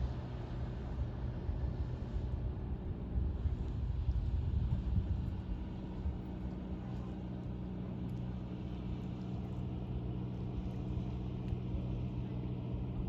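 Boat engine running at a steady pitch, a low drone that masks the sound of the waves.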